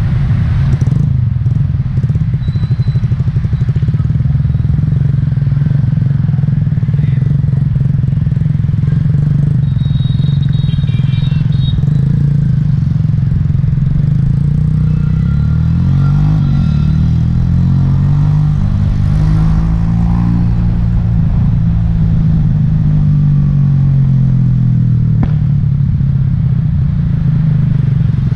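Yamaha Taurus motorbike's small single-cylinder engine running steadily while riding in scooter traffic; in the second half its pitch rises and falls several times as the bike speeds up and slows.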